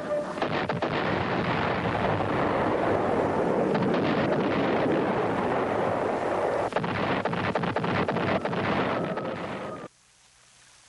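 A B-52 carpet-bombing strike: a rapid string of heavy bomb explosions that merge into one continuous rumble, with many sharp blasts standing out. It cuts off suddenly near the end.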